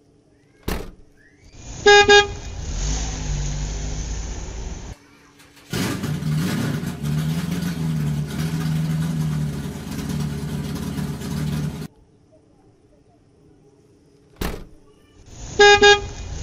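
A car horn beeps twice, then a car engine runs for several seconds with its pitch rising and falling. After a quiet gap, a click, two more horn beeps and the engine sound come again near the end.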